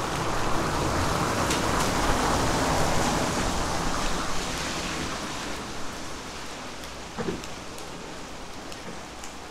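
Steady rain falling, with scattered drips ticking on surfaces. A rushing swell of noise is loudest over the first few seconds and fades away, leaving quieter rain toward the end.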